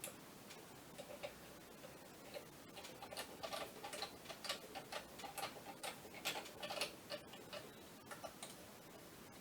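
Light, irregular clicking and ticking of small tools and metal parts being handled during hand assembly of a Scania electronic clutch actuator, thickest in the middle of the stretch.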